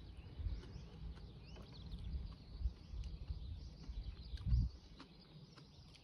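Small birds chirping faintly over an uneven low rumble. A louder low thump comes about four and a half seconds in.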